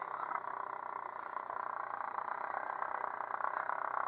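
Yamaha outboard motor idling, a steady even hum.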